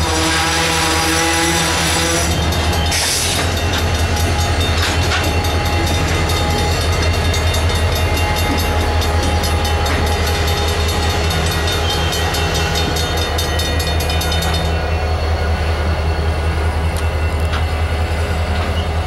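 Safetran mechanical crossing bells ringing rapidly as a freight train rolls over the crossing. The EMD SD40-2's 16-cylinder two-stroke diesel drones steadily as the locomotive passes at the rear of the shoved cars, about halfway through.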